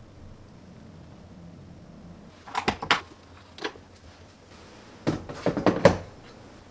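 Short plastic clicks and knocks from hands handling a Cuckoo Twin Pressure electric rice cooker and its open lid. They come in a small group about two and a half seconds in and a louder cluster around five to six seconds in.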